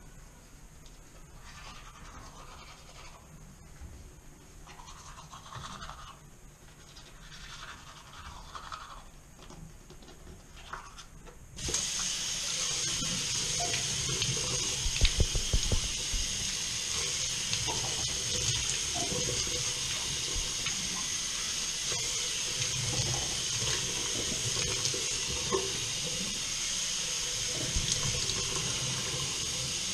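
Toothbrush scrubbing teeth, faint and irregular. About twelve seconds in, a bathroom tap is turned on suddenly and water runs steadily into the sink, with splashing as hands and face are rinsed in the stream.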